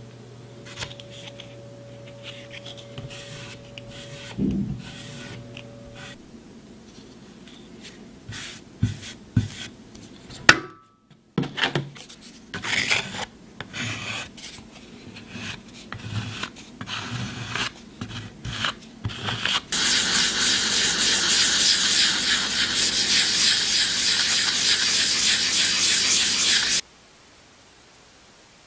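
A hand tool scraping and rubbing across a gesso-coated wooden panel: first irregular strokes, then, from about twenty seconds in, several seconds of loud steady scraping that stops suddenly near the end.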